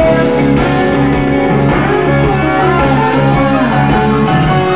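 Live band playing an instrumental break of a blues-rock song, a guitar playing lead lines with bent notes over the rhythm section.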